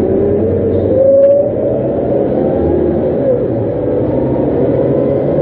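Scania K230UB city bus heard from inside the cabin: the engine and ZF automatic gearbox whine and rise in pitch under acceleration over a steady low rumble, with a brief drop in pitch about three seconds in.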